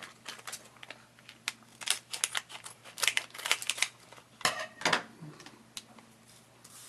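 Sealed plastic Lego minifigure blind bag crinkling as it is handled and torn open, with irregular crackles and snaps, the densest cluster a little past the middle.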